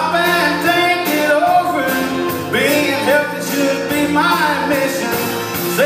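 Live country band with banjo and guitars playing a comic song, with a man singing over it.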